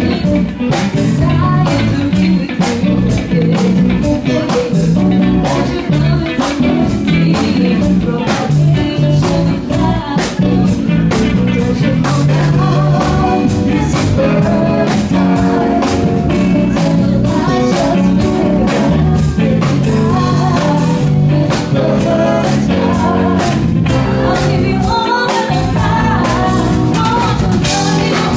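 A woman singing a pop song into a microphone over a band with drums, loud with a steady beat.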